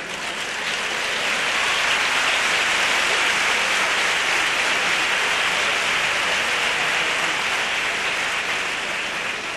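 Theatre audience applauding, a dense steady clapping that swells about a second in and eases near the end.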